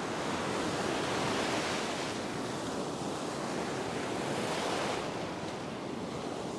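Ocean surf breaking and washing around the shallows, swelling louder about a second in and again near five seconds.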